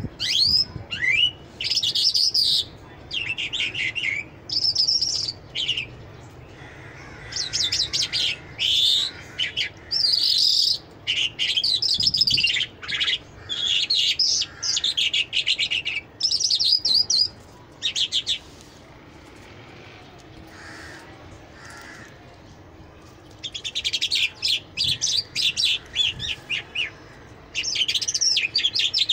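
Caged Mashadi Jal lark singing: long runs of rapid, high twittering and trilled phrases in quick succession, broken by a pause of a few seconds about two-thirds of the way in before the song starts again.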